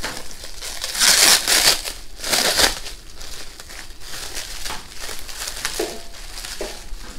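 Clear plastic bag crinkling as hands unwrap silicone tubing from it, with a few louder rustles in the first three seconds.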